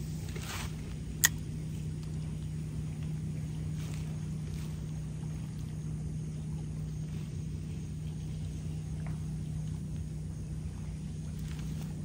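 A steady low hum on one pitch, with a single sharp click about a second in.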